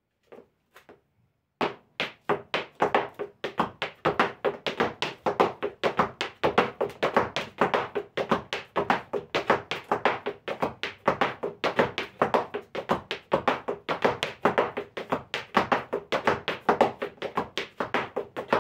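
Zapateo footwork in heeled boots: the 'Bonito' mudanza of Argentine folk zapateo, a rapid, even run of heel stamps and sole scrapes, seven strikes to a bar in chacarera time. It starts about a second and a half in.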